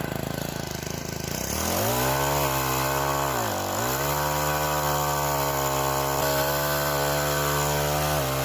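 Small pole-mounted chainsaw running: its motor speeds up about a second and a half in, dips briefly near the middle, then runs steadily at high speed.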